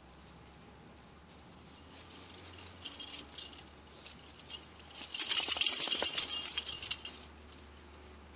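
Dry maple leaves crackling and rustling: a few scattered crisp ticks about two to three seconds in, then a denser, louder crackle for about two seconds from around five seconds in.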